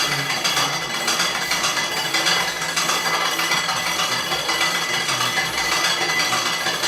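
Randers 1932 appliance running with a steady metallic rattling and clinking: the fault noise that five service repairs have not cured.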